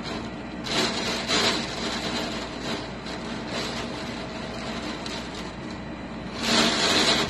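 Hurricane wind and driving rain rushing steadily, surging in loud gusts about a second in and again near the end.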